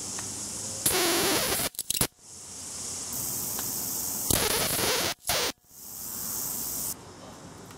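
High-voltage arcing from a CRT TV's flyback output across a wasp-zapper grid: a high hiss builds up, then loud crackling arcs break out about a second in and again about four seconds in, each breaking off suddenly. The arc overloads the TV's power supply, which shuts down.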